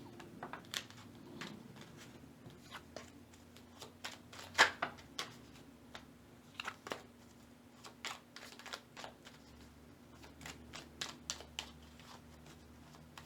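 A tarot deck being shuffled by hand: a scatter of soft, irregular card clicks and flicks, with the sharpest snap about four and a half seconds in.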